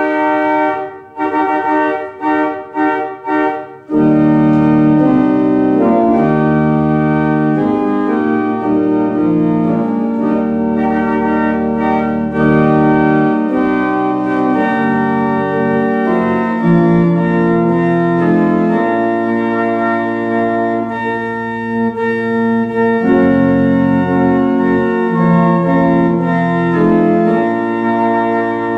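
Organ music: a few short, separated chords in the first four seconds, then full sustained chords with deep bass notes underneath.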